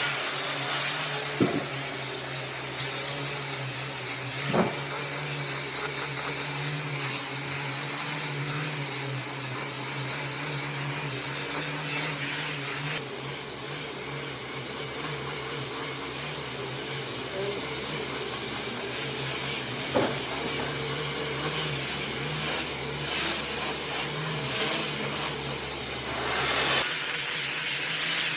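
An electric power tool running continuously, with a high whine that wavers up and down in pitch as it works the wood. There are a few short knocks along the way.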